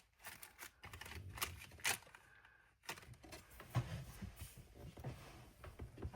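Scattered small clicks, taps and soft knocks of craft supplies being handled and set down on a desk, with a denser run of light taps in the second half.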